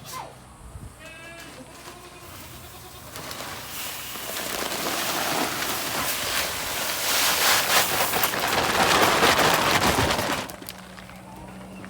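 A goat bleats briefly near the start. A loud rushing noise then builds over several seconds and cuts off suddenly near the end.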